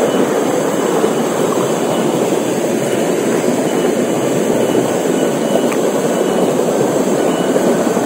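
Water from a small jungle waterfall rushing and splashing over rocks at close range, a loud steady rush.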